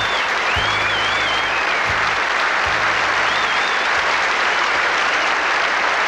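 Studio audience applauding, with a few shrill whistles, while the band's last low bass and drum notes sound during the first few seconds.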